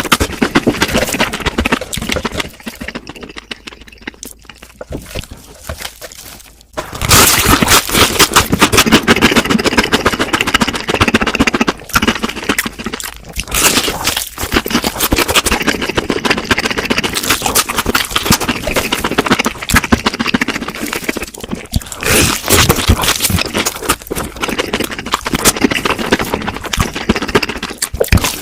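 Close-miked eating of crispy fried food: rapid crackly crunching and chewing. It drops away for about three seconds a few seconds in, then resumes loudly.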